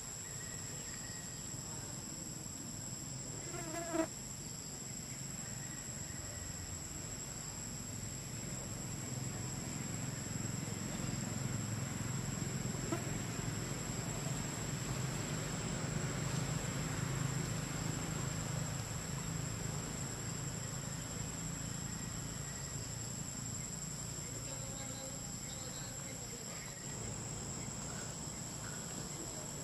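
Steady high-pitched insect chorus droning without a break, with one short chirp about four seconds in and a low rumble that swells through the middle.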